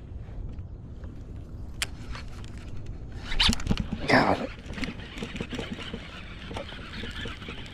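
Baitcasting fishing reel being worked: a couple of brief zipper-like whirs around the middle, the second falling in pitch, then soft rapid ticking as the reel is cranked, over a low steady rumble.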